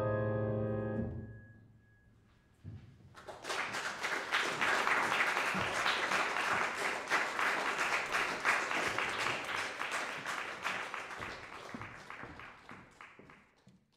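The song's last notes, from the Bechstein grand piano and the soprano, ring away over about a second and a half. After a brief hush, the audience breaks into applause: many hands clapping, which thins out and fades near the end.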